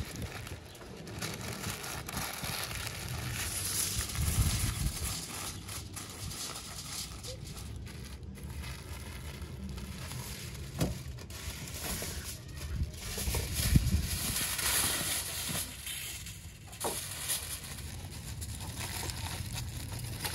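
Aluminium foil crinkling and rustling as it is folded and pressed around a leg of lamb, in irregular bursts. Two dull low bumps come about four and fourteen seconds in.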